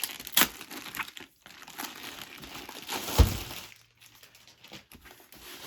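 Packaging crinkling and rustling as a diamond painting kit's canvas and bags of drills are unpacked, with a single heavier thump about three seconds in.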